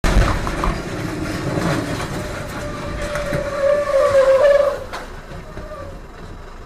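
Loud road and vehicle noise from a truck on a wet highway as a box truck runs off the road into the trees. A strong, slightly wavering high tone builds about three seconds in and stops suddenly near five seconds, leaving a quieter rumble.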